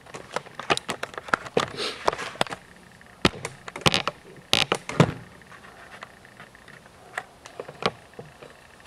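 Handheld camera handling noise: irregular clicks, taps and short rustles, with the loudest knocks about four to five seconds in.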